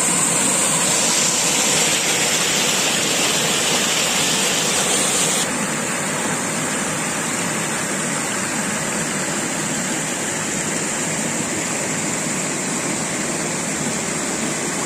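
River water rushing and splashing over rock ledges in small cascades and rapids, a steady rushing noise. It drops a little in loudness about five and a half seconds in and then carries on evenly.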